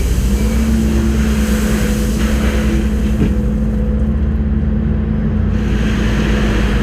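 Kubota skid steer's diesel engine running steadily under work, with a constant low hum.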